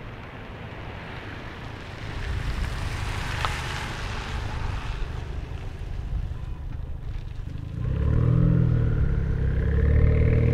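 Exhaust of a straight-piped 2017 Ford Focus ST, with its 2.0-litre turbocharged four-cylinder, driving nearby: a quieter rush at first, then much louder and deeper from about eight seconds in as the car comes on power, with the pitch climbing near the end.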